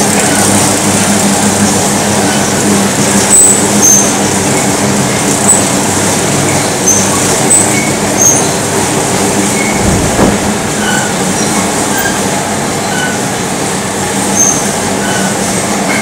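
Wire stranding machine for high-tension conductor running: a loud, steady mechanical din with a low hum, and short, high-pitched squeaks at irregular intervals, about one every second.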